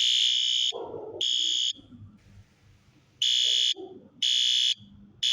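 System Sensor SpectrAlert Advance fire alarm horn sounding the temporal code-3 evacuation pattern on its low volume setting. About two short blasts come early, then a pause of about a second and a half, then three blasts of about half a second each.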